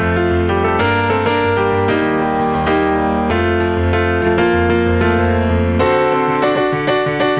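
A recorded keyboard part plays sustained chords over a low bass line. It is heard through an AudioScape 1176-style FET compressor set to fastest release and a medium-fast attack.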